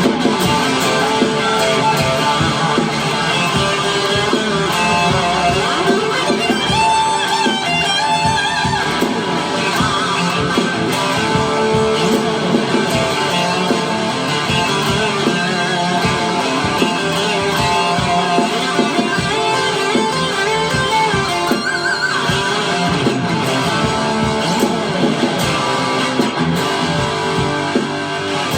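Electric guitar played through an EVH 5150 Overdrive pedal: a continuous, dense run of overdriven notes and chords at a steady loud level.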